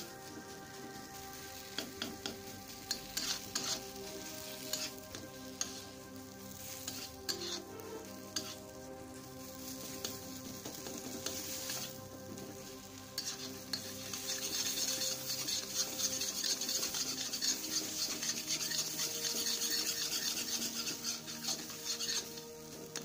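A steel spatula stirring and scraping a thick bean paste around a black iron wok, with the paste sizzling as it fries in mustard oil. The scraping is irregular throughout, and the sizzle and scraping grow louder and busier for a stretch in the second half. This is the paste being stirred so that its remaining water cooks off.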